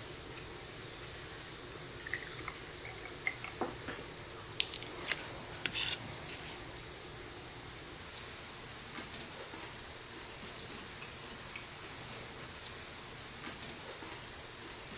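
Thick, cloudy doburoku sake poured from a bottle into a small glass: a cluster of small glugs, drips and clicks a couple of seconds in, then a faint steady hiss with a few scattered light clicks.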